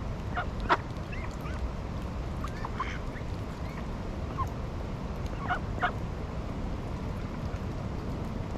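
Ducks and other waterfowl calling: short, separate honks and quacks at irregular moments, over a steady low background rumble.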